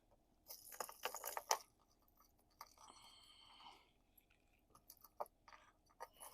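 Fishing lures being handled and pulled from their packaging: a quick cluster of clicks and rustles about half a second in, a softer scraping rustle around three seconds in, then a few faint ticks.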